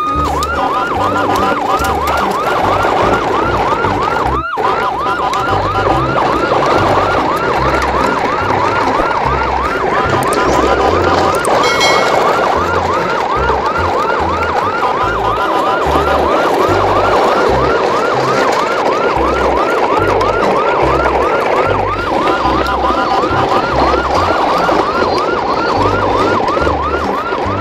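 Electronic emergency-vehicle siren in a fast yelp, a rising whoop repeating about three times a second, with a low pulsing beat underneath. It breaks off for an instant about four and a half seconds in.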